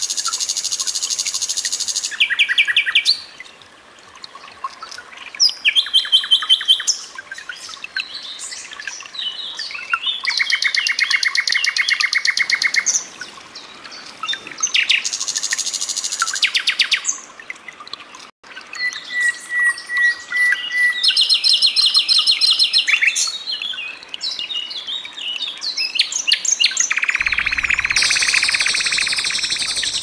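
Common nightingale singing: a string of varied phrases, each a fast run of repeated notes or trills, with short pauses between phrases.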